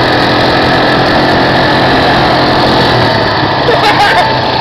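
Quad bike (ATV) engine running steadily at riding speed, loud and close as heard from on board a moving vehicle.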